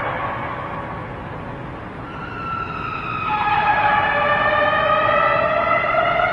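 A loud, drawn-out siren-like tone with several overtones, gliding slowly downward in pitch; it fades into a dip early on and swells back in about two seconds in. This is the kind of unexplained 'strange sound in the sky' people have recorded and posted.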